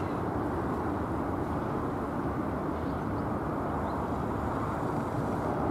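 Steady outdoor background hum of distant city traffic, even and unbroken, with no distinct events.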